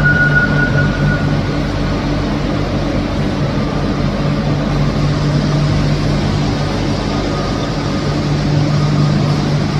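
Rodalies electric multiple unit standing at the platform, its onboard equipment giving off a steady low hum; a high whine fades out about a second in.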